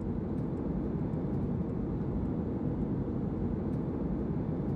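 Boeing 737-800 cabin noise heard from a window seat: its jet engines and the airflow make a steady low rumble with no change in pitch.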